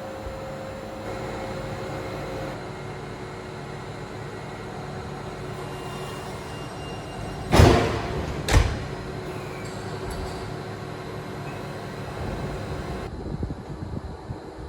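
A tram standing with its onboard equipment humming steadily while it is readied for service, with two loud clunks about a second apart halfway through and a few lighter knocks near the end.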